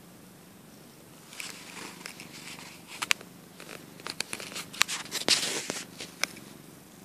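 Colorpoint cat purring steadily. From about a second in until near the end, rustling and scattered sharp clicks close to the microphone rise over the purr, the loudest of them in the second half.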